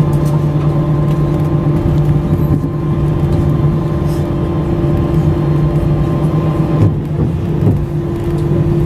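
Cabin noise of an Airbus A320 taxiing after landing: a steady low rumble from the jet engines at idle and the cabin air system, with several constant hum tones.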